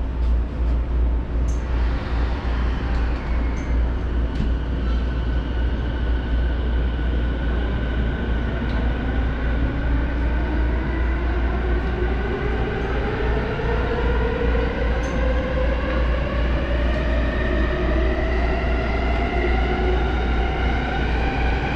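Electric commuter train pulling out of an underground station, heard inside the car: its traction motor whine climbs steadily in pitch as the train accelerates, over the constant rumble of the wheels.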